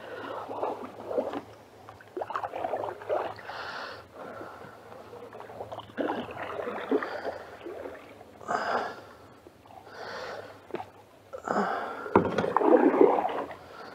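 Canoe paddles dipping and pulling through the creek current, a swish and splash of water every second or two, with a sharp knock near the end.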